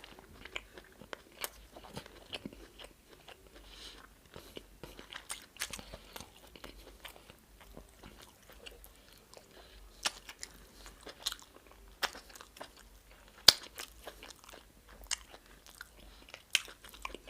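Close-miked chewing and mouth sounds of a person eating starch with black soup: scattered wet smacks and clicks, one louder click a little after the middle.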